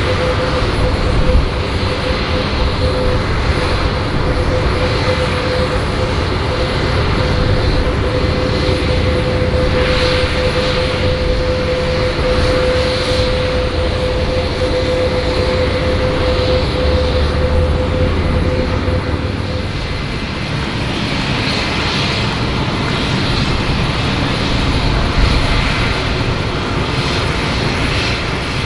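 Jet aircraft running on the airport ramp: a loud, steady rush with a whine that fades out about two-thirds of the way through.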